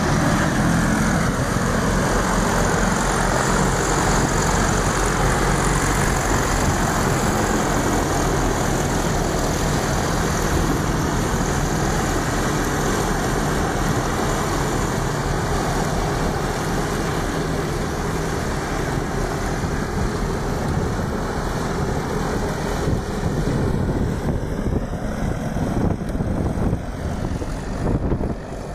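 Zetor 7011 tractor's four-cylinder diesel engine running steadily while it drives a 2 m grass mower through tall grass, slowly growing fainter as the tractor moves away.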